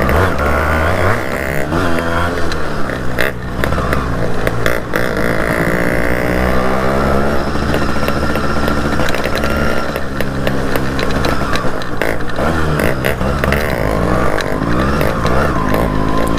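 Yamaha RX two-stroke single-cylinder motorcycle engines running on the move, their pitch rising and falling with throttle and gear changes. More than one engine is heard at once.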